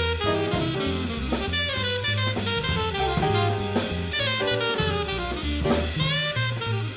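Jazz background music: a horn melody over stepping bass notes and a drum kit.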